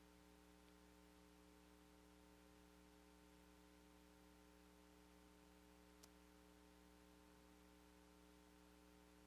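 Near silence: a faint steady electrical hum from the sound system, with one tiny click about six seconds in.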